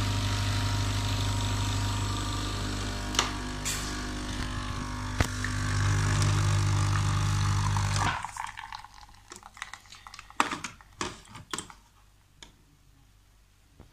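Capsule coffee machine's pump humming steadily as it brews coffee into a cup, cutting off abruptly about eight seconds in. A few light clicks and clinks follow as the cup is handled.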